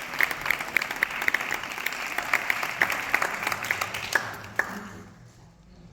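Audience applauding, the clapping thinning out and dying away over the last two seconds.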